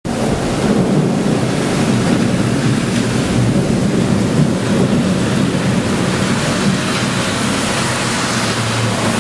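Heavy rain pouring down during a thunderstorm: a loud, steady rushing noise.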